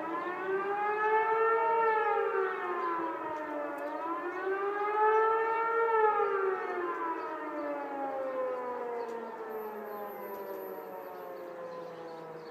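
Civil defence siren wailing in a rising and falling tone during its annual test, the pitch peaking about two and six seconds in, then sinking in a long slow fall as the siren winds down.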